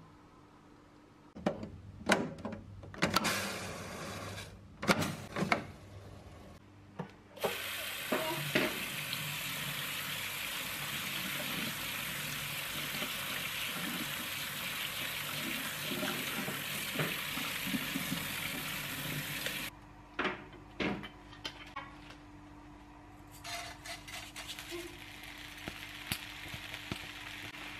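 Tap water running steadily onto raw rice in a metal mesh strainer while hands rub the grains to rinse them, starting about seven seconds in and cutting off suddenly near the twenty-second mark. Scattered light knocks and clicks come before and after it.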